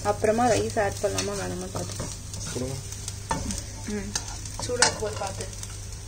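Metal spoon and spatula stirring and scraping rice in a nonstick wok while it fries with a light sizzle, with a few sharp clicks of the utensil against the pan in the second half.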